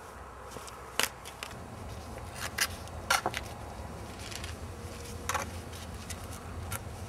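A few short, scattered clicks and rustles over a low steady hum.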